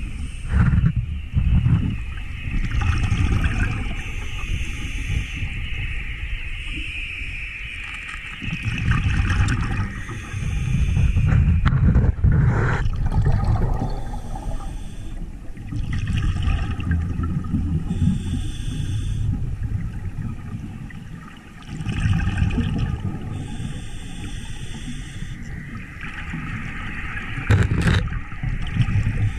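Scuba diver breathing underwater through a regulator: drawn-in breaths and gurgling bursts of exhaled bubbles, repeating every few seconds.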